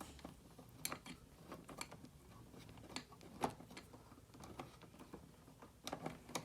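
Light handling noise of small plastic parts and wire: a few sharp clicks, spaced irregularly, with soft rustling, as wire connectors are fitted onto the wires of a smoke alarm's wiring harness.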